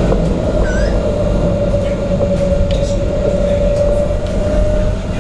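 Alstom Citadis 302 tram running along the track, heard from inside the passenger car: a steady rolling rumble with a constant high hum over it.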